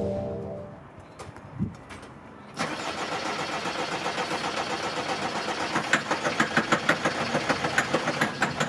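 Diesel van engine cranking on its starter motor with an even chugging of about four to five beats a second that does not catch and settle into an idle: a hard-starting engine that will not fire. A single knock comes just before the cranking begins.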